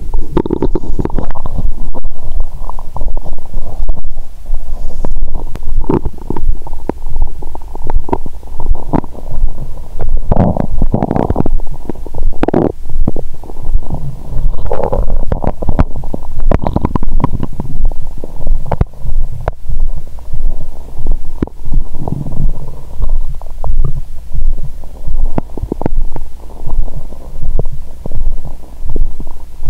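A person's stomach gurgling and rumbling while digesting a meal, heard close up through a stethoscope microphone pressed to the belly. The gurgles come irregularly and are busiest about a third to halfway through, over a steady low pulse about once a second.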